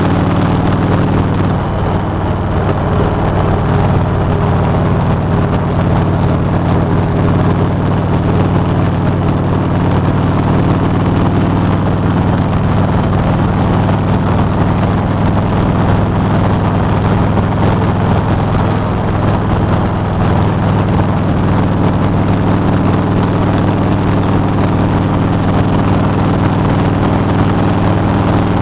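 Motorcycle engine running steadily at cruising speed, with a constant rush of wind noise over it.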